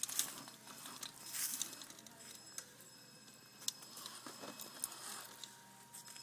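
Radio-controlled rock crawler's tyres and chassis scrabbling over rocks and loose debris: quiet patter with scattered sharp clicks and a few short rustling scrapes.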